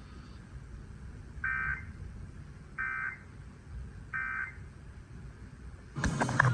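Emergency Alert System end-of-message data tones: three short, identical warbling digital bursts about a second and a half apart, the signal that the alert broadcast is over. Music starts abruptly just before the end.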